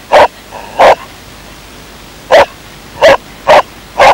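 Mountain-rescue search dog barking at a found casualty: its bark alert, calling the handler in to the find. Six short, loud barks, the first two close together, then a pause of over a second, then four more in quicker succession.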